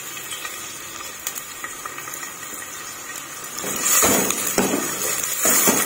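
Sliced onions frying in a little oil in a stainless steel pot, with a silicone spatula stirring and scraping them against the pot. The sound is a low hiss at first and grows louder about four seconds in, when the stirring starts in earnest.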